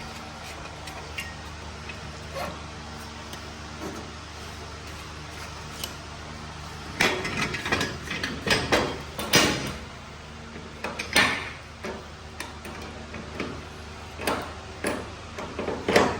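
Steady low hum, then from about halfway in a run of irregular metallic clanks and knocks from hand tools and exhaust parts being handled.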